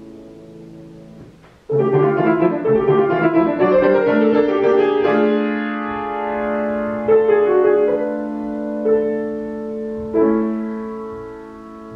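Solo grand piano playing: a soft chord fades away, then about two seconds in a loud run of quick notes climbs in pitch, giving way to sustained chords with a few new notes struck over them.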